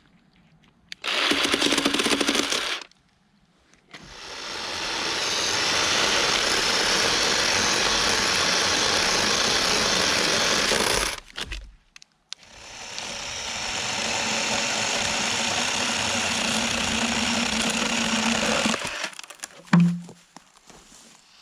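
Black & Decker cordless electric chainsaw running: a short burst, then two long steady runs of about seven seconds each, each building up over a second or two and cutting off suddenly.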